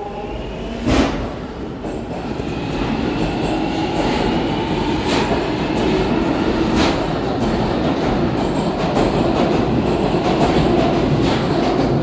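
A London Underground Jubilee line train, 1996 Stock, pulling away from the platform and gathering speed. The traction motors give a whine that rises slowly in pitch over the running noise of the wheels, with a few sharp clicks along the way.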